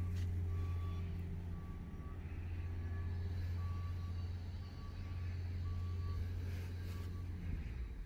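A reversing alarm beeping about once a second, one steady tone each time, over the low steady rumble of a heavy vehicle's engine. The beeps stop near the end and the engine rumble fades soon after.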